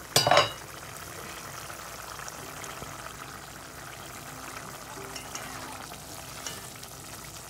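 Dried-fish and masala curry simmering in an aluminium pot, a steady bubbling hiss. Just after the start a short loud metallic clang rings out as the aluminium pot lid is set down on the stovetop, and a few light clicks of a spatula in the pot come near the end.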